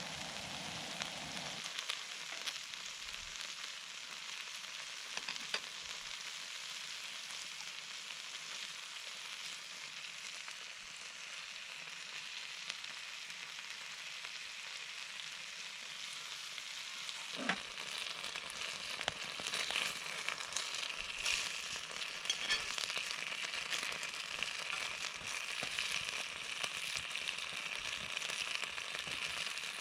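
Food sizzling and frying in a pan, a steady hiss full of fine crackles that gets louder and busier a little past halfway.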